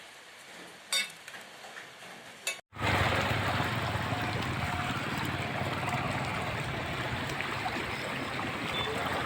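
Two faint clicks, then, after a sudden cut about two and a half seconds in, a steady rush of flowing water.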